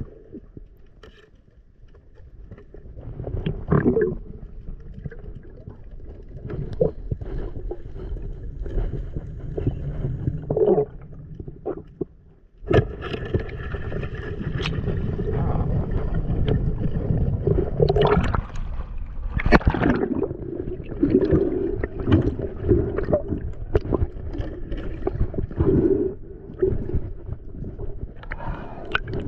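Muffled underwater sound through a submerged camera: water rushing and gurgling with scattered clicks and knocks. It turns suddenly louder and busier about twelve and a half seconds in.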